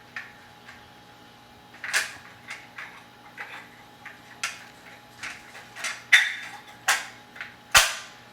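Metal parts of a Suomi 72-round drum magazine clicking and knocking as the spring mechanism is handled and seated on its shaft: about a dozen short, irregular clicks, the loudest about six seconds in and near the end.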